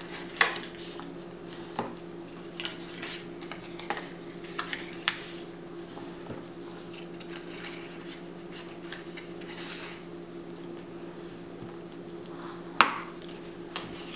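Cardstock being folded along its score lines and creased with a bone folder: scattered soft rustles, taps and clicks against the table, with a louder rustle near the end. A steady low hum runs underneath.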